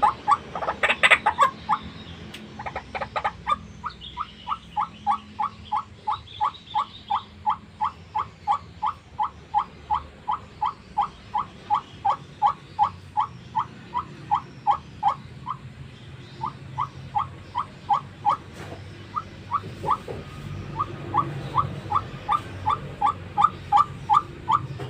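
White-breasted waterhen (ruak-ruak) calling: a long series of short notes repeated evenly, about two to three a second. The calls are louder and harsher in the first second or two, and break off briefly about midway before going on.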